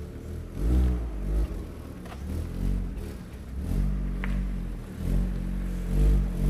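Opel Astra OPC's two-litre turbocharged four-cylinder engine pulling while the car is driven, its note swelling and changing pitch several times with the throttle.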